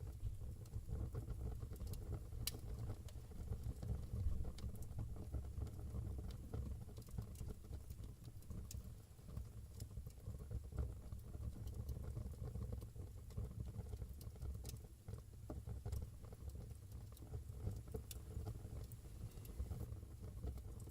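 Wood fire burning in a fireplace: a steady low rumble of flames with irregular crackles and pops from the burning wood.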